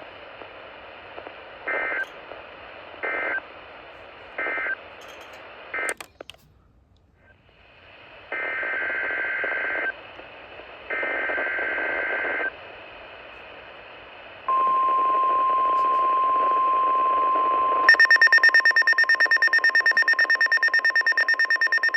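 NOAA Weather Radio through a small receiver's speaker: hiss, then several short bursts of the two-tone SAME data signal, a brief dropout, two longer SAME header bursts, and then the steady 1050 Hz warning alarm tone for about three seconds. The radio's own rapid, pulsing alert beep then sets off and runs loudly to the end, triggered by the alarm tone.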